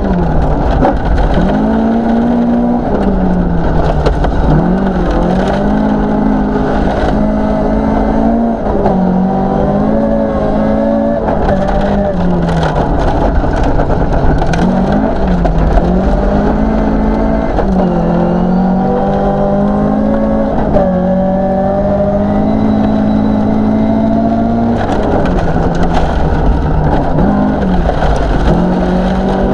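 Toyota Celica 2.0GT 16V rally car's four-cylinder engine at full throttle, heard from inside the cabin, its revs climbing and then dropping sharply over and over through gear changes and lifts. Gravel crunches and rumbles under the tyres beneath the engine.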